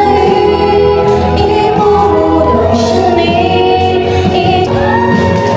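Karaoke: a woman singing a Chinese pop song into a microphone over a backing track, holding long notes.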